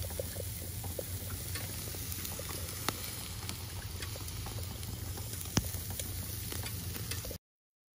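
Tri-tip roast sizzling on the hot grate of a charcoal kettle grill, with scattered sharp pops and two louder cracks, over a steady low rumble. The sound cuts off abruptly near the end.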